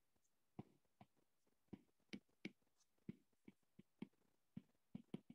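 About a dozen faint, irregular taps of a stylus on a tablet's glass screen during handwriting.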